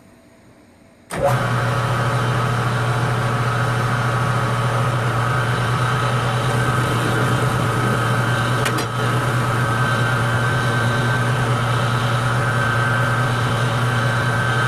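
A metal lathe switches on suddenly about a second in and runs steadily while a cutoff tool parts off a drive shaft. There is a brief dip and click near the middle.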